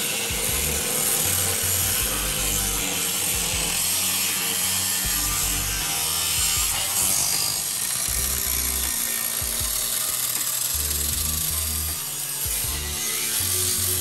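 Angle grinder with a thin disc cutting steadily through rusted steel body panel on a 1967 Pontiac Firebird, a continuous high grinding hiss, over background music with a bass line.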